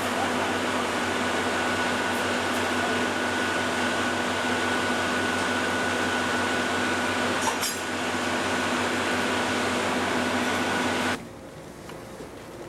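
Steady machinery hum with a few fixed tones, as from ventilation or engine noise inside an enclosed cabin, with a short clink about seven and a half seconds in. It cuts off abruptly near the end, giving way to a quieter rushing noise.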